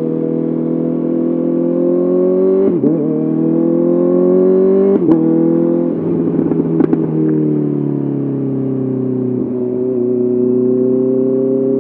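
Honda CBR 650R inline-four engine through an SC-Project SC1R exhaust, running under way with the revs slowly climbing. The note breaks briefly about three and five seconds in, turns rough and crackly with a few sharp pops around six to seven seconds in, then settles lower and steadier.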